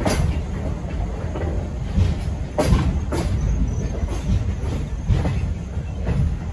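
Passenger train car rolling along the track, heard from on board: a steady low rumble with occasional sharp clicks of wheels passing over rail joints.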